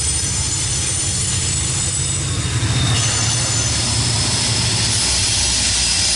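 MARC commuter train's diesel locomotive running past with its coaches. A thin, high-pitched wheel squeal comes in more strongly about three seconds in.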